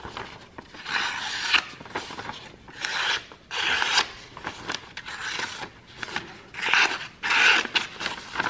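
A freshly sharpened kiridashi knife, made from an old file, slicing through a sheet of paper in a series of short strokes, each a brief hiss. This is a paper-cutting test of the new edge, which cuts cleanly.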